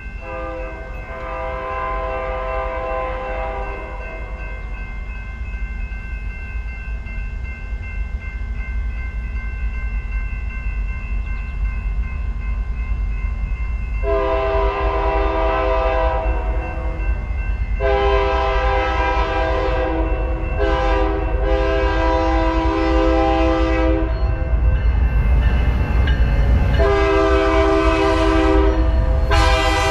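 Diesel freight locomotive sounding its multi-tone air horn in a series of blasts: one near the start, then several long and short blasts over the second half. Under the horn the locomotives' engine rumble grows steadily louder as the train approaches.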